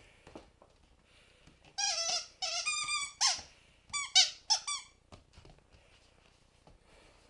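A rubber squeaky toy squeaked repeatedly as a puppy bites it: about six high-pitched squeaks, starting about two seconds in and ending around five seconds in.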